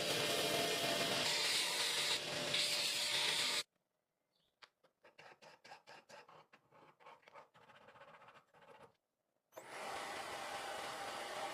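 Metal grinding on the steel knife blank, a steady noise that cuts off sharply after about three and a half seconds. Then come short rasping strokes, about three a second, like hand filing or sanding the blade. Near the end a steady grinding noise starts again, quieter.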